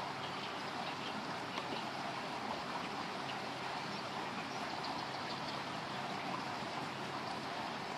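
Steady rush of flowing river water, an even hiss that keeps on without a break.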